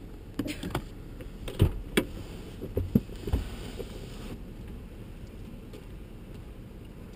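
A handful of sharp clicks and knocks inside a stopped vehicle's cabin, bunched in the first three and a half seconds, over a steady low rumble.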